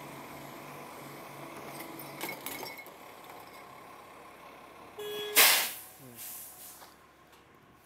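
Side-loading recycling truck's engine running steadily. A few sharp knocks about two seconds in as the arm tips the wheelie bin over. About five seconds in comes a loud burst of air hiss from the truck's air brakes.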